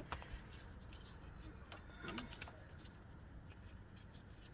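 Faint metal clicks and taps of a brake caliper bolt and spanners being handled while the bolt is worked into place, with a few clicks at the start and one sharper click about two seconds in.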